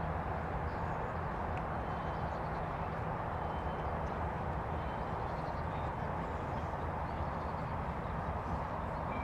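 Steady outdoor background noise with a low hum underneath, and a few faint short high-pitched chirps.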